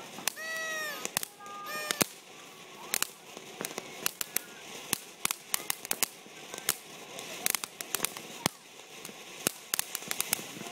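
Ground fountain firework spraying sparks: a steady hiss broken by many sharp, irregular crackling pops. A short tone that rises and falls comes in about half a second in.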